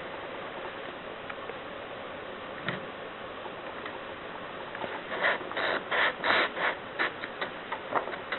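Mercedes Superba typewriter being typed on: a few scattered light clicks, then, about five seconds in, a quick uneven run of about a dozen sharp keystrokes.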